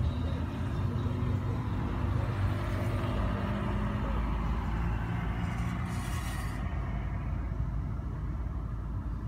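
Road traffic: motor vehicles driving past on the street close by, a steady engine rumble, with a short hiss about six seconds in.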